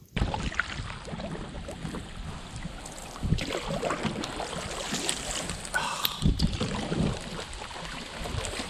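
Water splashing and sloshing around a canoe being paddled, with a heavier surge every few seconds, and wind buffeting the microphone.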